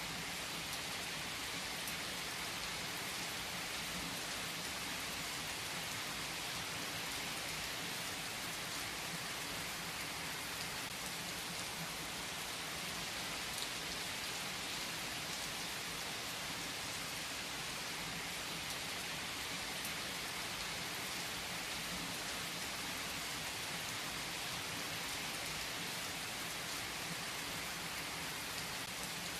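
Steady rain falling and pattering on surfaces, an even hiss of many fine drops with no let-up.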